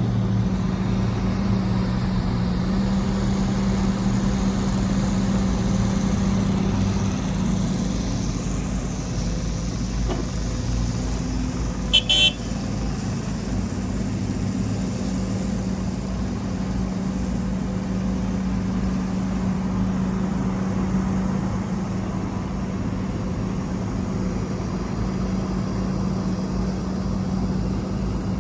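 Heavy diesel earthmoving machinery running steadily with a low, even engine hum. About twelve seconds in there is one short, sharp high-pitched sound.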